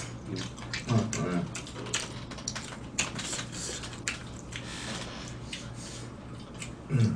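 Spoons and chopsticks clicking and scraping against bowls and stone pots during a meal, with light, irregular clicks throughout. A brief voice sound about a second in and another near the end.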